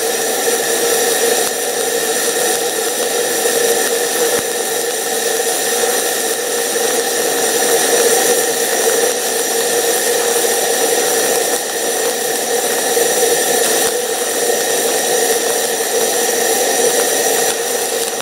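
Stick welding arc with 3/32-inch 7018 low-hydrogen rod, a steady crackling hiss, as a weld bead is laid into the V-ground crack of a cast iron exhaust manifold. A gas heating torch flame burns on the part at the same time, keeping it hot.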